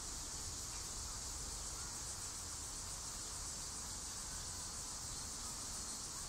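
Steady, high-pitched chirring of insects, with a faint low rumble underneath.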